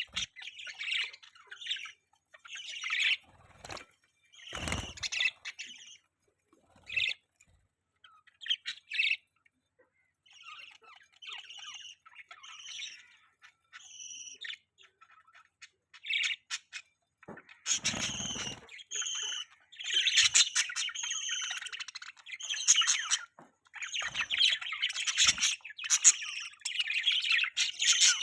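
Budgerigars chirping in short high bursts, scattered at first and turning into near-continuous chatter in the last third. Two dull thumps cut in, one about five seconds in and a louder one a little past the middle.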